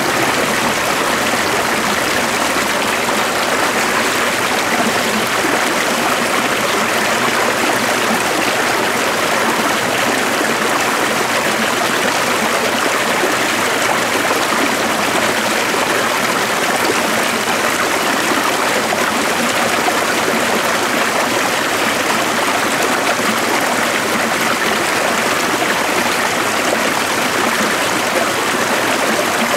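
A stream of running water flowing steadily, an even rushing and trickling that holds unchanged throughout.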